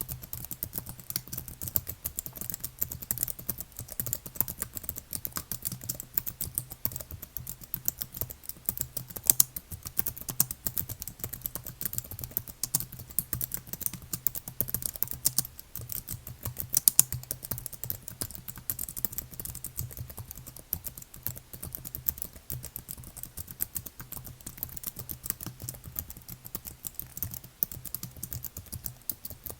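Continuous fast typing on a computer keyboard: a dense, irregular stream of key clicks and clacks at an even pace, over a faint steady low hum.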